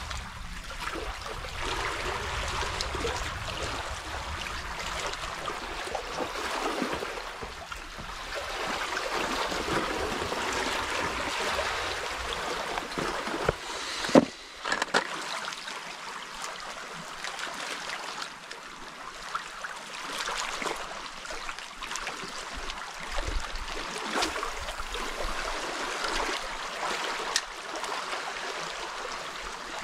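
Small sea waves lapping and trickling among shoreline rocks, with one sharp knock about halfway through.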